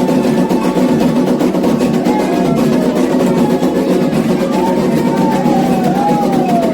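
Candomblé ritual music: atabaque hand drums playing a fast, steady rhythm, with a high gliding tone about two-thirds of the way in.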